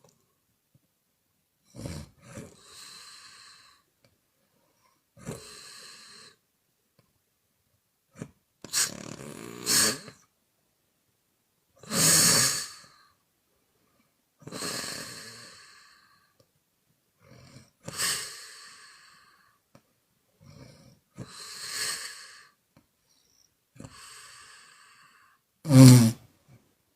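A woman snoring in her sleep: a series of airy, mouth-blown exhale snores every two to four seconds, with one louder, low-pitched snore near the end.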